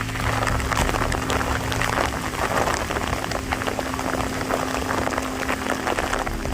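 Rain falling steadily: a dense hiss of many small drops striking, with a low steady hum underneath.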